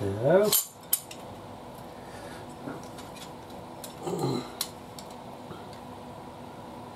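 Light metallic clicks and clinks from the pressure plate and springs of a motorcycle slipper clutch being handled and fitted onto the clutch. A man's drawn-out, rising "so" opens it, and a short falling hum comes about four seconds in.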